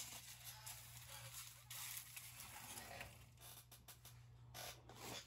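Near silence: room tone with a steady low electrical hum and a few faint, brief rustles.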